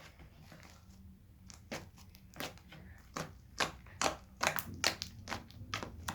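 Slime being squeezed and worked by hand, giving irregular sharp clicks and pops that come faster and closer together after the first second or so.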